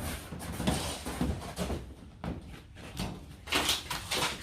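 Irregular metallic knocks and clatter while panels and parts of a Speed Queen tumble dryer are being fitted back on, with a cluster of louder knocks near the end over a low steady hum.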